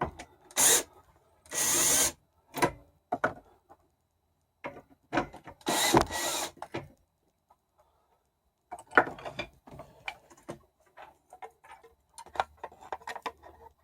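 Cordless drill-driver running in short bursts to back out roof-rack screws: three runs in the first half, the longest about a second. Near the end comes a run of small clicks and knocks.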